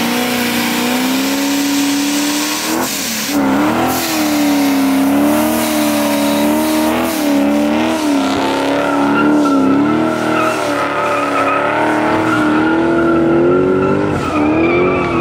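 A 1999–2004 Ford Mustang doing a burnout and donut: the engine is held at high revs, its pitch wavering up and down as the throttle is worked, with a short dip about three seconds in and a rise near the end. Its spinning rear tires squeal on the pavement throughout.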